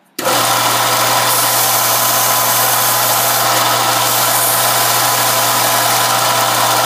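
Small belt sander switched on just after the start and running loud and steady, with a constant motor hum under the hiss of the abrasive belt as a corner of thin aluminum plate is sanded round against a steel template.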